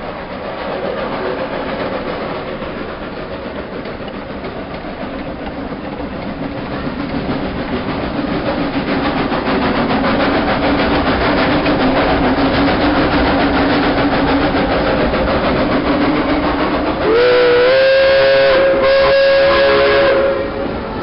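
Steam train running with a steady rolling rumble that grows louder, then two long blasts of its steam whistle near the end, the second following straight after the first.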